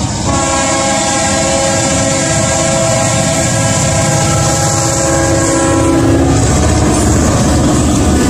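Diesel locomotive's multi-chime air horn sounding one long chord as the lead units approach and pass close by, over the heavy rumble of the diesel engines. The horn's pitch drops about six and a half seconds in as the lead unit goes past.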